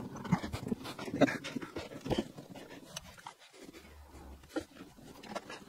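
Rustling and irregular light clicks and knocks as racing-harness straps and buckles are worked through the slots of a bucket seat, with close, heavy breathing.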